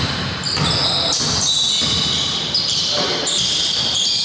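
Basketball bouncing on a wooden gym court during play, with repeated short, high-pitched squeaks from players' sneakers.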